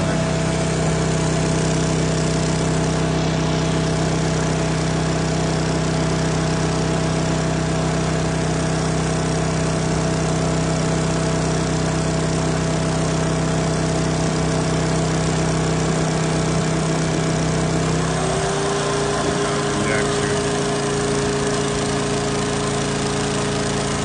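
Wet/dry shop vacuum running with its hose down a pipe, sucking hard, over the steady running of a small petrol engine, likely a generator. About three-quarters of the way through the running note changes abruptly: one tone glides up and holds higher.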